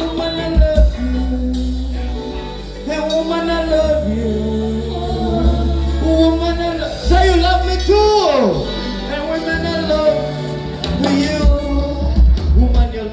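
Live band playing a song with a steady bass beat, and a voice singing over it.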